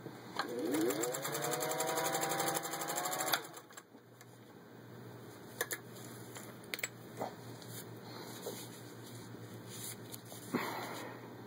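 Singer 201-2 sewing machine's motor winding up with a rising whine and running at speed, the needle stitching through layers of thin leather with a fast, even rhythm for about three seconds, then stopping suddenly. A few scattered clicks follow.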